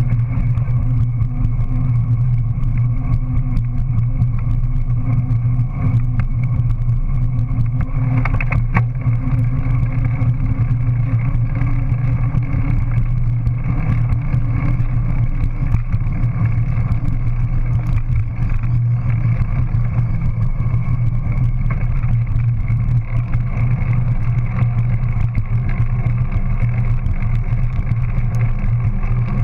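Steady, loud rumble of a dual-suspension mountain bike riding along a concrete footpath: tyre rolling noise mixed with wind and frame vibration picked up by the camera mounted on the bike.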